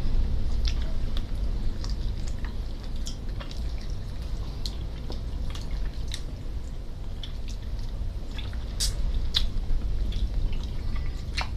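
Wet mouth sounds of eating roast chicken by hand: lip smacks and chewing, with fingers pulling the meat apart, heard as irregular sharp little clicks over a low steady hum.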